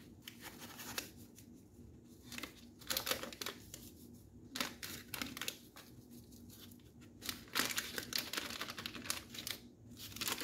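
A packet of white chocolate chips crinkling as it is shaken and squeezed out over a mixing bowl, in irregular bursts with short pauses. The crinkling is busiest about three-quarters of the way through.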